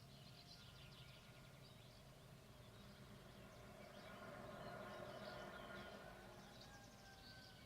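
Faint dawn birdsong: many small birds chirping and twittering. A low, steady drone swells gently through the middle and then fades.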